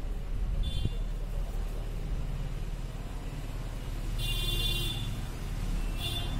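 A steady low rumble in the background, with three short high-pitched squeaks or calls: one about a second in, a longer one about four seconds in, and one near the end.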